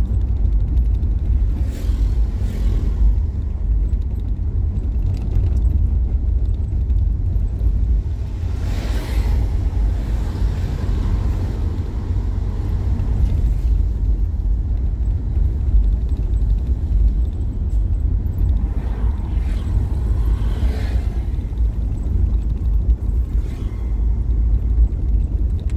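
Steady low rumble of a car driving on an asphalt road, heard from inside the cabin: engine and tyre noise, swelling briefly a few times, around two seconds in, around nine seconds and around twenty seconds.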